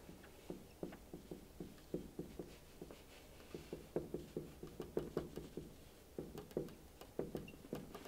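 Marker pen writing on a whiteboard: faint, irregular taps and short strokes, a few each second.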